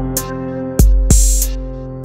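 Background music: held chords over a drum beat, with deep kick hits and sharp snare-like hits.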